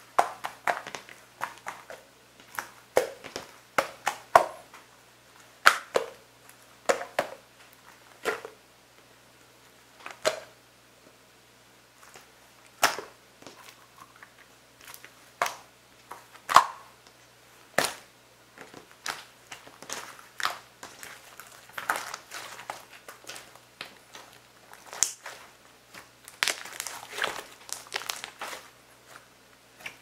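Glossy green slime being kneaded, stretched and pressed by hand, giving irregular sticky pops and squelches. Near the end there is a denser run of crackling pops.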